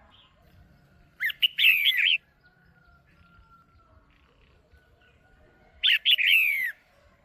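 Female red-whiskered bulbul calling: two short bursts of quick, sweeping chirps about four seconds apart. This is the female's call that keepers play to excite male bulbuls.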